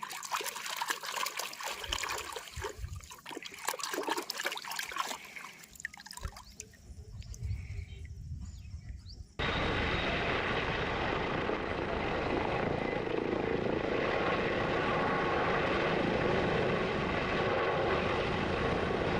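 Water splashing and trickling with irregular clicks and clatter, as toys are washed. About nine seconds in, a louder steady rushing noise cuts in abruptly and holds to the end.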